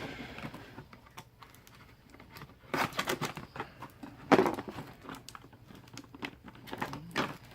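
Cardboard and plastic toy packaging being handled and worked open at its tape: irregular rustling and crackling, with louder bursts about three seconds in and the loudest just after four seconds.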